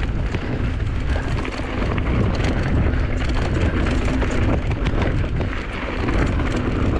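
Mountain bike descending a dirt trail at speed: wind buffeting the camera's microphone with a steady low rumble, tyres rolling over the dirt, and many quick rattles and clicks from the bike over bumps.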